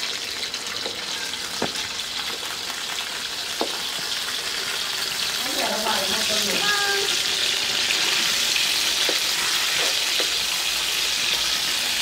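Poa fish sizzling as they fry in hot oil in a wok-shaped pan, the sizzle growing louder about halfway through. A wooden spatula gives a few light clicks against the pan as the fish are turned.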